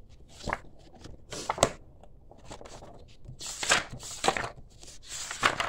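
Pages of a spiral-bound paper planner being flipped over, a run of short rustling paper swishes several times.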